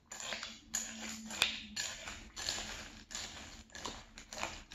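Close-up crunching chews of a mouthful of Lucky Charms cereal in milk, about two to three crunches a second, with one sharp tap of the spoon against the glass bowl about a second and a half in.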